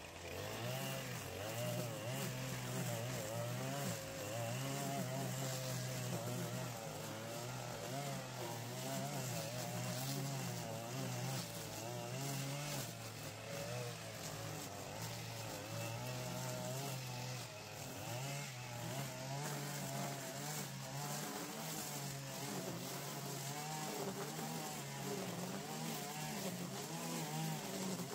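Petrol string trimmer (brush cutter) running while cutting through tall overgrown grass, its engine pitch rising and falling steadily as the throttle is worked.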